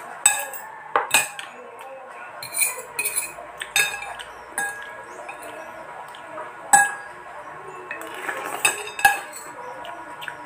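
Metal spoon and fork clinking and scraping against a bowl during eating, in sharp irregular clinks about once a second, the loudest about seven seconds in.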